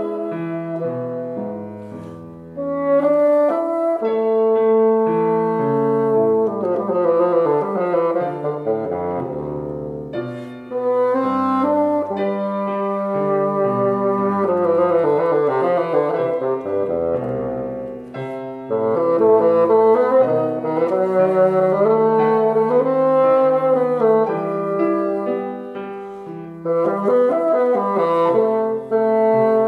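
Bassoon and piano playing a classical piece together: the bassoon plays a sustained melodic line over piano accompaniment, in phrases with short dips between them about every eight seconds.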